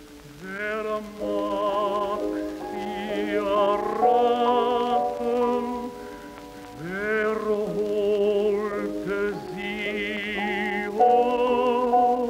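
A tenor singing a slow song with wide vibrato and sliding onto notes, over sustained instrumental accompaniment.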